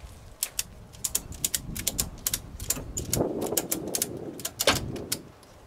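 A ratchet tie-down being worked tight against the truck frame: a run of sharp metallic clicks from the ratchet, a few a second and unevenly spaced, with one louder click near the end.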